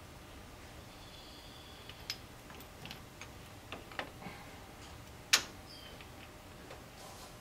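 Scattered light clicks and taps from the rocker arms and valve adjusters of a Nissan H20 engine being handled as the rocker shaft assembly is set onto the cylinder head, with one sharper click a little past halfway.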